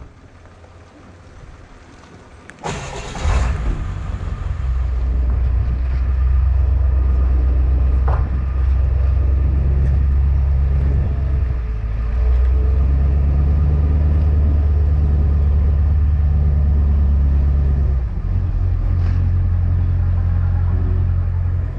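Ford F-350 Super Duty dually pickup's engine starting about three seconds in, then running with a steady deep rumble as the truck pulls away towing a boat on its trailer.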